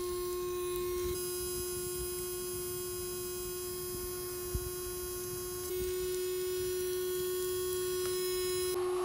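Small electric water pump in an RC fire truck running with a steady, high hum, stepping up slightly in level about halfway through.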